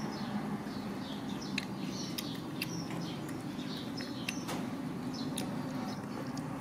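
Small birds chirping: many short, high chirps repeating throughout, with a few sharp clicks and a steady low hum underneath.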